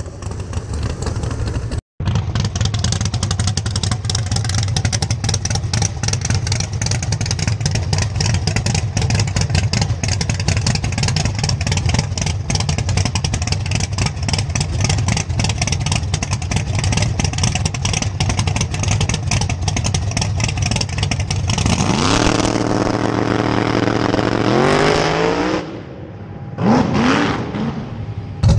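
A drag car's race engine, a silver Camaro's, runs loudly and roughly at the starting line. From about two-thirds of the way in it climbs steadily in pitch for a few seconds, then drops away. A second short rising rev follows near the end.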